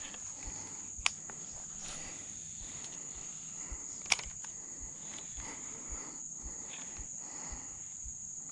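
Insects droning with one steady, high-pitched tone, and two sharp clicks, about a second in and about four seconds in.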